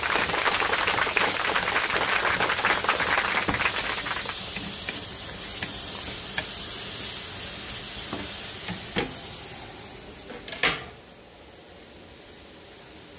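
Onion, ginger and garlic sizzling in hot oil in a wok, stirred with a wooden spatula that ticks and scrapes against the pan now and then. The sizzle fades about ten seconds in, a sharp knock follows, and then only quiet room noise remains.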